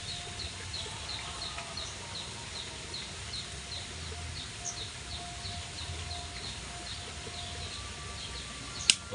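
Short high chirps from a small animal, repeating evenly about three times a second, over a low steady hum. A single sharp click near the end.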